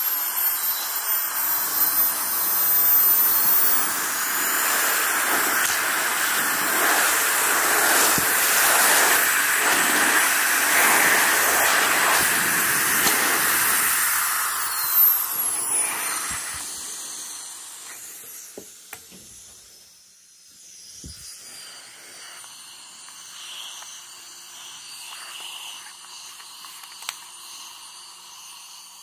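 KiCA Jetfan 2 electric air blower running at high speed: a loud rush of air with a very high whine. About sixteen seconds in the motor spins down, its whine falling in pitch. Then only faint handling clicks remain, as a nozzle is fitted near the end.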